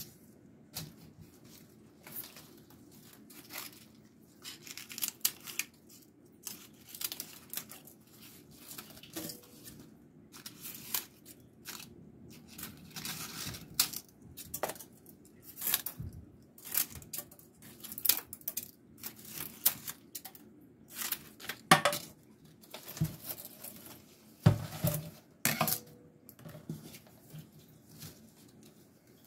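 Scissors snipping and hands tearing dry, dead leaves off a potted houseplant, with crisp crackling and leaf rustling. The snips and crackles come irregularly throughout, with a couple of louder snaps about three-quarters of the way through.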